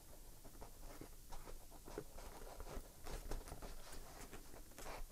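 Faint, irregular light taps and rubbing as hands press a plastic LED light tube onto the glued edge of a craft-foam hat brim.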